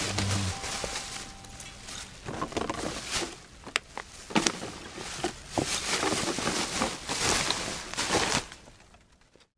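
Black plastic garbage bag rustling and crinkling as empty plastic bottles and firework rockets are pushed into it, with a few sharp clicks and knocks.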